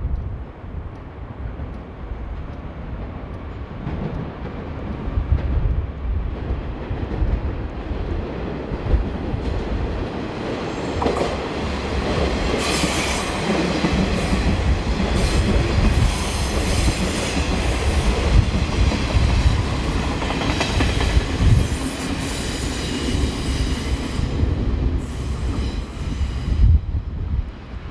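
Kiha 40/Kiha 47 diesel railcars running by, with the deep rumble of the train and clattering wheels. From about halfway, as the cars pass close, high squealing and rattling come in. These fade near the end.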